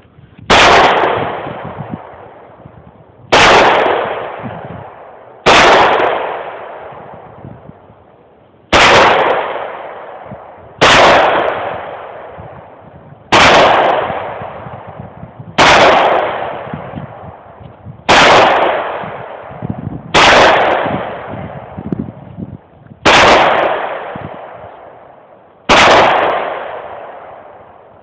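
Glock 9mm pistol fired eleven times at a slow, steady pace, a shot every two to three seconds, each crack followed by a long echo that dies away.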